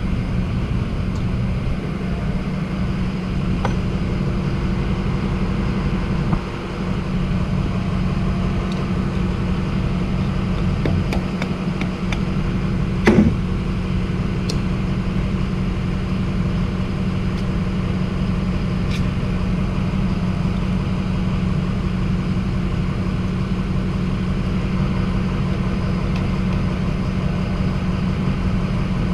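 Die grinder with a flap wheel running steadily against the mouth of a hydraulic cylinder barrel, grinding off rust so the piston will come out more easily. One sharp metallic clank about 13 seconds in.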